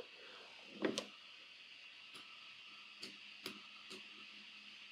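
Faint, scattered computer mouse clicks, with two louder clicks close together about a second in, over a steady faint hiss.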